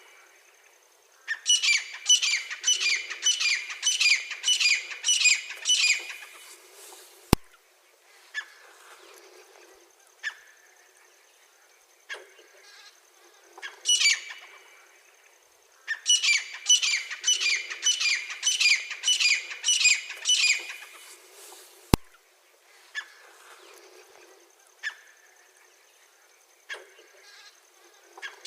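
Grey francolin (teetar) calling: two runs of about eight loud, shrill, evenly repeated notes, about three a second, with single calls in between. A sharp click sounds twice, about 7 and 22 seconds in.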